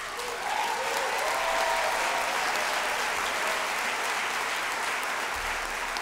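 Audience applauding steadily in a large hall.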